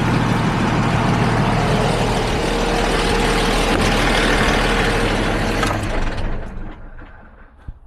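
DAF LF truck's diesel engine idling steadily, then switched off with the key about six seconds in and running down to a stop.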